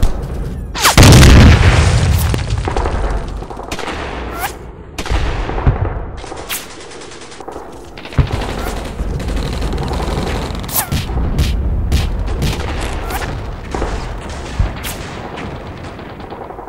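Dubbed-in gunfire and explosion sound effects: a loud explosion about a second in, then scattered gunshots at irregular intervals.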